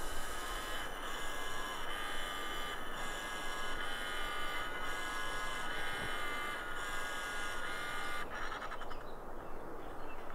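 Bosch GRL 300 HV rotary laser level auto-leveling itself: a series of high whining tones that shift pitch about once a second and stop abruptly about eight seconds in, as the unit finishes leveling.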